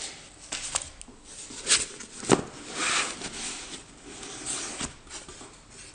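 A cardboard box being handled on a wooden tabletop: scattered light knocks and taps, one sharper knock a little over two seconds in, between stretches of soft cardboard scraping and rustling.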